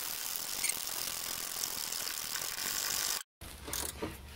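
Ratcheting wrench clicking rapidly and steadily as it backs the rear axle bushing bolt out of a Chevy Aveo's trailing arm, a bolt that is coming out only slowly. It cuts off abruptly about three seconds in, then comes back in a few short bursts.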